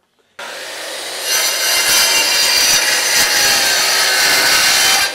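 Handheld electric circular saw running and cutting through a rough wooden board. It grows louder about a second in as the blade bites into the wood, holds a steady whining cut, and cuts off near the end.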